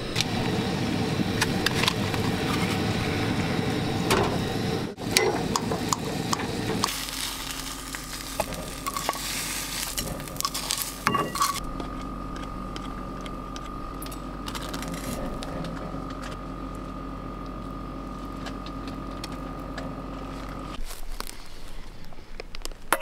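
Camp cooking: food sizzling in a pan, with utensils clinking and scraping against pots and dishes. A steady hum runs through the middle and later part, stopping about two seconds before the end.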